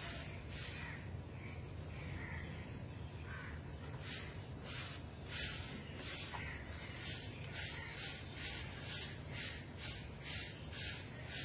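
Straw hand broom sweeping a dirt yard: rhythmic swishing strokes, about two or three a second, most regular in the second half.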